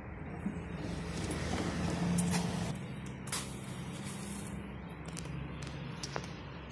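A motor vehicle's engine running steadily, swelling to its loudest about two seconds in and then easing off, with a few short sharp knocks over it.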